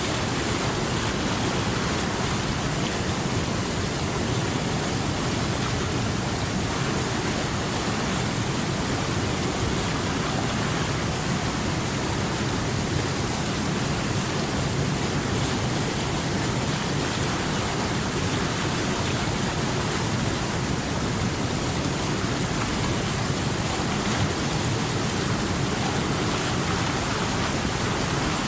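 Water rushing and flowing continuously over rocks: a steady, even rush with no breaks or single splashes.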